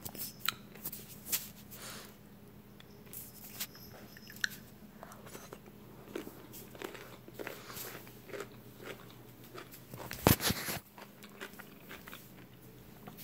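Close handling sounds at a table: scattered soft clicks and crunchy rustles, with one louder knock about ten seconds in.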